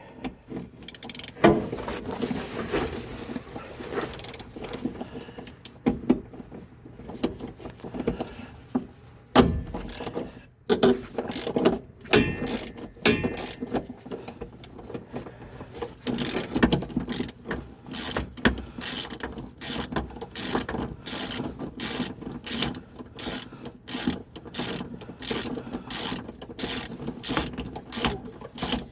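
Hand ratchet and socket working a rear shock absorber mounting nut loose, with scattered clanks early on. The ratchet settles into steady clicking strokes, about two a second, through the second half.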